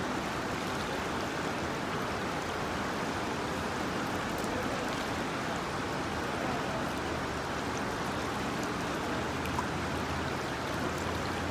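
River water rushing and rippling over rocks in a shallow run, a steady even rush.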